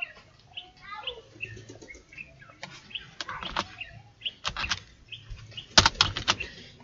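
Keystrokes on a computer keyboard, scattered at first and then a quick cluster near the end, over short chirps in the background.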